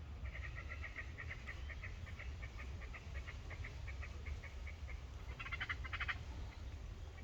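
A bird calling: a string of short repeated notes, about five a second and slowing, then a quicker chattering burst near the end, over a steady low rumble.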